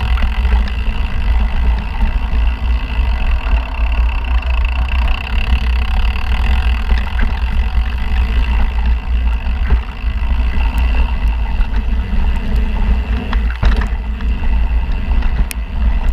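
Mountain bike rolling fast down a dirt singletrack, heard from an action camera on the rider: a steady low wind rumble on the microphone over the rattle and tyre noise of the bike on the ground, with a couple of sharp knocks near the end.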